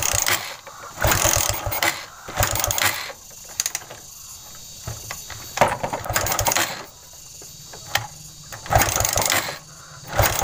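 Suzuki Shogun 125 single-cylinder four-stroke being kick-started again and again: each kick is a burst of ratcheting mechanical clatter as the engine turns over without firing. The engine has lost its ignition, with no spark at the coil output, a fault the mechanic puts down to a failed pulser.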